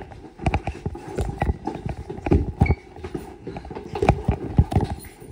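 Irregular knocks and thumps, several a second, from hurried movement and handling on a hard kitchen floor.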